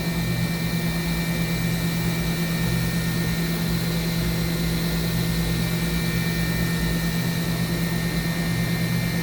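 Spindle of a Mazak HCN 4000-III horizontal machining center running unloaded at 10,000 RPM: a steady whine with a high ringing tone over the machine's hum. The load reads 1%, and it sounds healthy.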